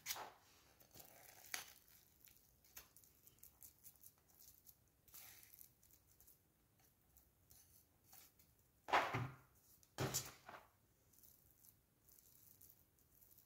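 Quiet scraping and light clicks of a silicone spatula working frosting out of a ceramic bowl onto a cake, with faint rustling of the paper cake liner. Two louder scrapes come about nine and ten seconds in.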